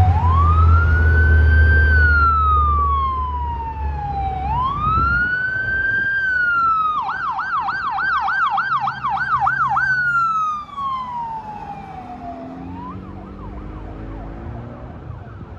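Emergency vehicle's electronic siren: two slow rising-and-falling wails, then a fast yelp for about three seconds, then a falling wail again. It is fainter over the last few seconds. A low traffic rumble is heard in the first few seconds.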